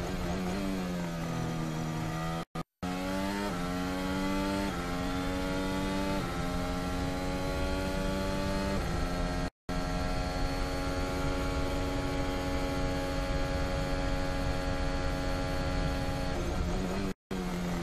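Onboard sound of an AlphaTauri-Honda Formula 1 car's 1.6-litre turbocharged V6 hybrid engine. Its pitch dips as the car lifts briefly, then climbs through several upshifts and holds high and steady at full throttle near 300 km/h. The sound cuts out for an instant a few times.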